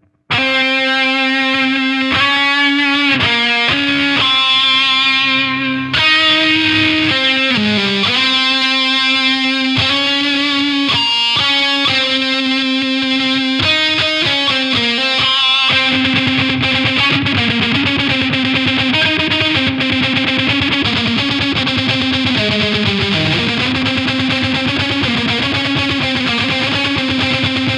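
Distorted electric guitar playing a riff, heard through a vintage-style EQ plugin. About halfway through, the notes blur into a denser, more sustained sound.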